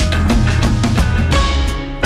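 Background music with a steady drum beat under held melodic notes.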